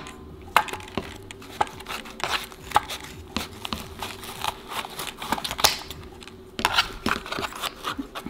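Scissors snipping and tearing through a Furby's synthetic fur and fabric skin: an irregular run of short cuts and rustles, the material hard to cut.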